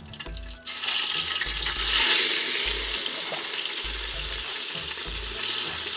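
Ginger-garlic paste dropped into hot sunflower oil: a sudden loud sizzle about a second in, loudest a second later, then steady frying.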